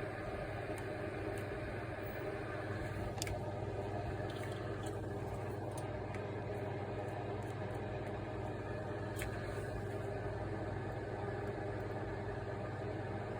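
A steady low hum with an even background noise over it, and a few faint clicks scattered through it.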